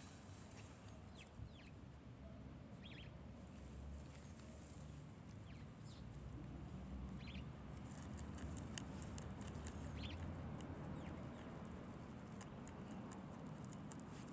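Guinea pig nibbling a broccoli leaf, faint crisp crunching clicks that come thicker in the second half. Short bird chirps sound now and then in the background.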